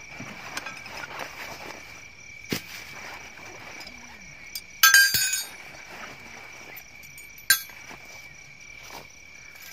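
Metal tent pegs and a hammer tipped out of a drawstring bag, clinking together in a loud jangle about five seconds in and a single sharp clink a couple of seconds later, with rustling of the bag on straw. Night insects trill steadily underneath.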